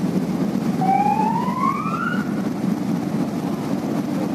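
Steady low rumble of a ship under way, its engine and the water wash together. About a second in, a single rising tone sounds for about a second and a half, then stops.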